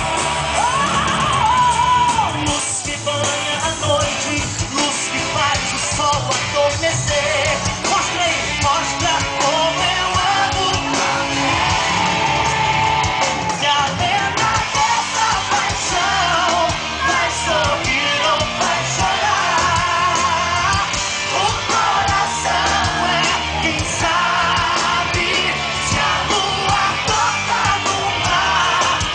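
Live band music through an outdoor concert PA, with a male singer and electric guitar, heard from within the crowd, whose voices yell along.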